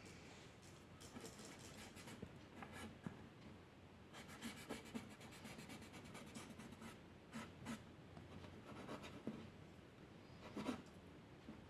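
Faint strokes of a drawing tool on paper, short scratchy lines coming in irregular clusters as a bird is drawn.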